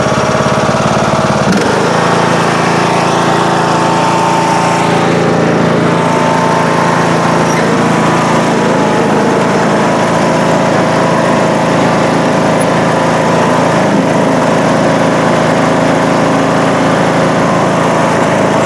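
John Deere D105 lawn tractor engine running steadily as the tractor is ridden over the lawn, the engine note shifting about a second and a half in and then holding steady.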